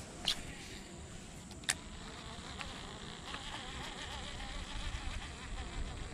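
Baitcasting reel during a cast: two sharp clicks in the first two seconds, then a buzzing whir for a couple of seconds as the spool turns.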